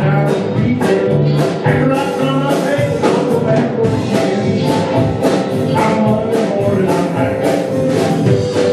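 Live band playing a song with singing: acoustic and electric guitars, keyboard and drum kit, the drums keeping a steady beat of about two hits a second.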